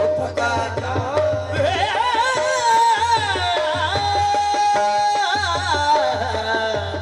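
Qawwali: a lead voice singing ornamented, gliding lines with a long held note midway, over harmonium and steady tabla strokes.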